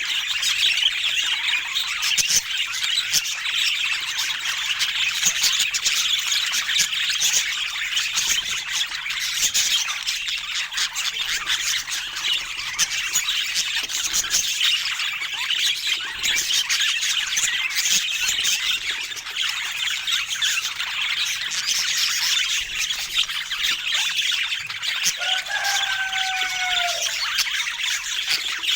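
Budgerigars chattering and squawking without pause, a dense scratchy warble full of clicks and chirps. Near the end comes one short whistled note that dips slightly.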